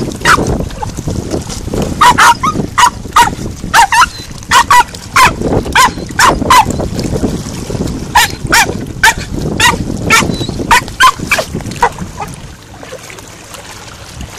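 Jack Russell terrier giving a long run of short, high-pitched yapping barks, often in quick pairs, one or two a second, that stop about twelve seconds in.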